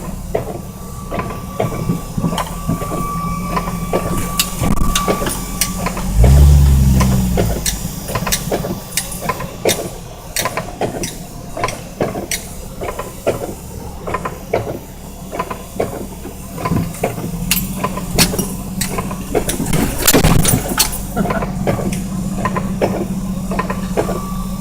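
1987 Jeep Wrangler YJ engine running at low speed, heard from inside the cab while crawling through deep snow, with a brief rev about six seconds in. Frequent knocks and rattles from the Jeep throughout, loudest about twenty seconds in.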